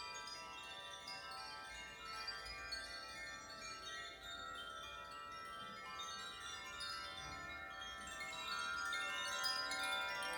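Chimes ringing in a dense wash of overlapping bell-like tones, with fresh strikes coming every fraction of a second, growing a little louder near the end.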